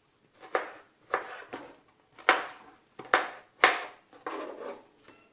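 Knife cutting strawberries into cubes on a cutting board: a series of sharp knocks, each as the blade meets the board, about one every half second to second.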